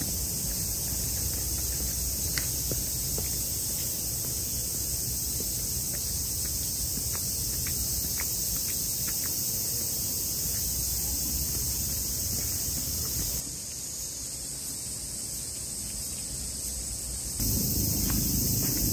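Outdoor ambience dominated by a steady, high-pitched insect chorus, over a low background rumble.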